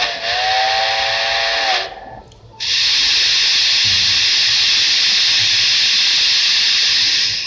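Steam locomotive sound effects from a sound-equipped model steam locomotive: a multi-tone steam whistle sounds for about two seconds over a hiss, then after a brief pause a long, loud steam hiss runs until it cuts off near the end.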